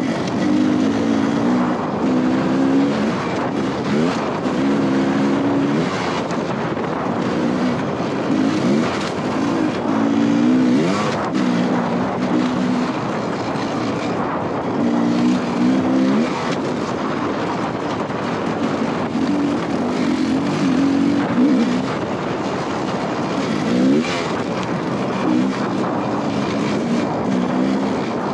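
Dirt bike engine revving up and dropping back every few seconds as the bike is ridden off-road.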